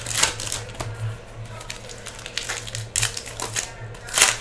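Trading-card pack wrappers crinkling and tearing as hobby packs are ripped open by hand, with cards rustling as they are handled. Short crackly bursts come near the start, about three seconds in and loudest about four seconds in, over a low steady hum.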